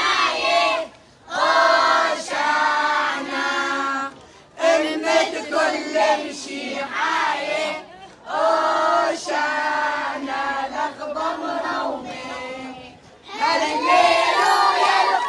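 A group of young children and women singing a hymn together in unison, in phrases separated by short pauses.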